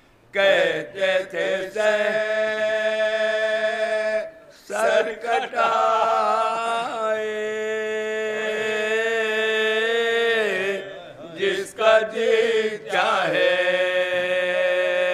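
Men's voices singing an unaccompanied Shia mourning lament in long, drawn-out held notes, broken by short pauses.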